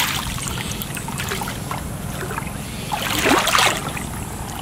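Shallow water sloshing and splashing as a person wades and moves through knee-deep flooded grass, with a louder splash about three seconds in.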